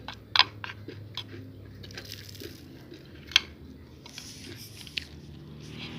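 Someone biting and chewing crispy fried uli (glutinous rice cake), with a loud crunch just after the start, another a little past halfway, a smaller one near the end, and lighter crackles of chewing between.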